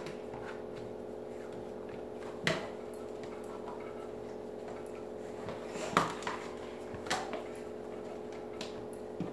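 Bread dough being folded over and pressed down by hand on a baking mat, with a few short knocks about two and a half, six and seven seconds in, over a steady background appliance hum.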